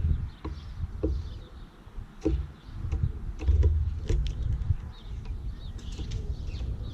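Faint, short bird chirps over an uneven low rumble, with scattered light clicks and knocks.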